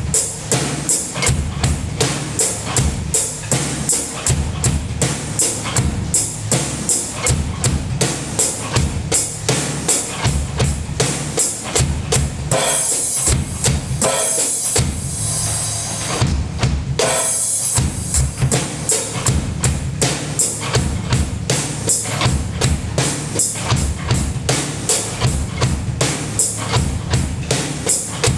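A drum kit played with sticks in a steady beat, with kick drum, snare and cymbals. About halfway through, the kick drops out for a few seconds under a wash of cymbals, then the beat comes back.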